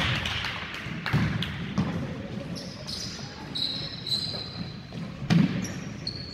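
Basketball bouncing on a hardwood gym floor in a few irregular thuds, the loudest near the end, with short high squeaks from players' sneakers partway through.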